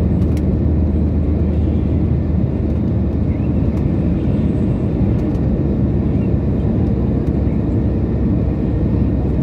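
Airliner cabin noise during descent: a steady, even low rumble of engines and airflow heard from inside the plane.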